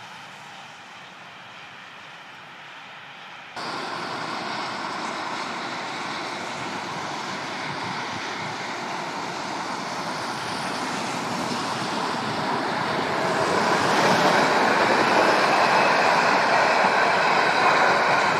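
Freight train hauled by a Green Cargo Rc4 electric locomotive approaching and passing, a steady rail noise that grows louder over the second half as the wagons roll by. Freeway traffic runs alongside.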